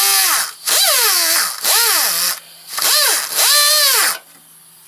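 Die grinder with a brass wire wheel, run in short trigger bursts whose pitch rises and falls with each squeeze, wire-brushing rust and corrosion out of the lower ball joint bore. It stops about four seconds in.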